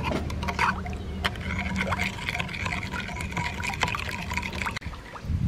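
A metal spoon stirring a thin sauce in a bowl: liquid swishing and trickling, with scattered light clicks of the spoon against the bowl.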